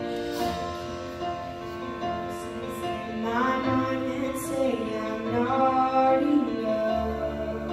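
A girl singing solo into a microphone over a soft instrumental accompaniment of sustained chords. Her voice comes in most clearly about three seconds in.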